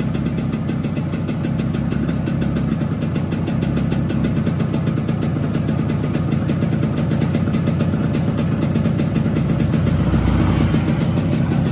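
Yamaha RX-King 135cc single-cylinder two-stroke engine running steadily after porting and an oversize bore, with the snoring 'ngorok' intake note from its ngorok air filter; it gets a little louder near the end.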